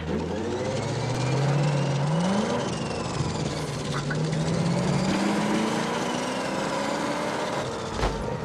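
A 1964 Buick Skylark's engine revving up and down several times as the car sits stuck in mud with its rear wheel spinning. With a regular, open differential, one tire spins and the other does nothing. A short knock comes near the end.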